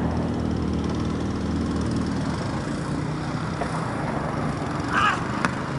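A steady low engine hum that fades after about two seconds. Near the end comes a brief call, then a single sharp crack of a cricket bat on the ball as a delivery is played.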